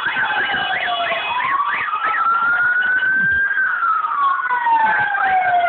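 Emergency-vehicle sirens sounding together. A slow wail falls, rises and falls again over about four and a half seconds. Over it, a second siren sweeps quickly up and down about twice a second for the first two seconds.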